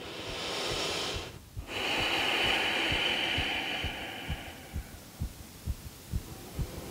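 A woman's slow, deep breathing: a breath of about a second and a half, a short pause, then a longer, louder breath of about three seconds. Soft, irregular low thumps sound underneath.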